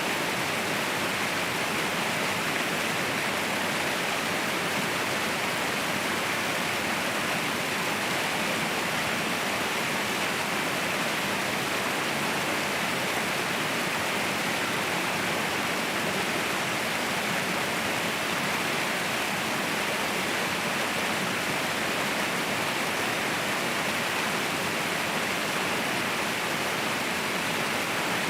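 Waterfall rushing with a steady, even roar of falling water, unchanging throughout.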